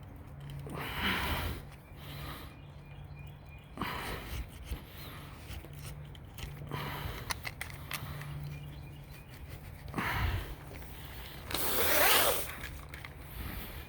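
Scattered rubbing and scraping strokes of 0.125-inch rubber spline being forced into a screen door frame's channel over heavy-duty pet screen, a tight fit. The longest and loudest stroke comes near the end, over a low steady hum.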